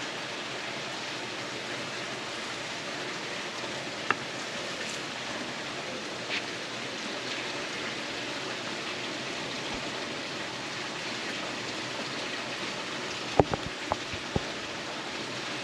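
A small tinder fire burning with a steady hissing crackle, with a sharp crack about four seconds in and a quick run of sharp cracks near the end.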